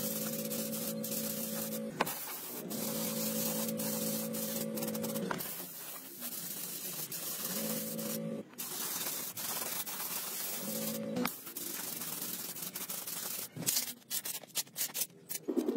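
Compressed-air paint spray gun hissing steadily as it sprays paint onto a metal panel, in several long passes with short breaks, a low steady hum sounding during some of them. Near the end, a quick run of clicks and knocks.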